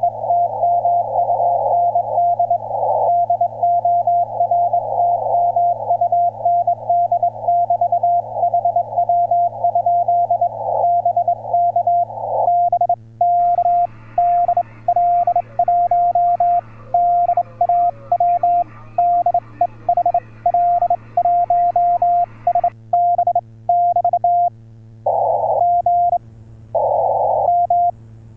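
Morse code (CW) tone from an HF amateur radio transceiver, keyed in rapid dots and dashes over band noise, with a steady low hum underneath. About halfway through, a wider hiss comes up behind the keying and drops away again; near the end the tone comes in a few longer dashes.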